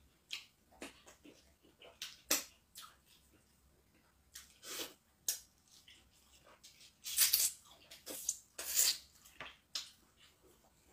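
Close-miked eating sounds from a person eating chicken in pepper soup by hand: irregular wet mouth clicks, lip smacks and chewing, with a cluster of louder smacking and sucking sounds about seven to nine seconds in.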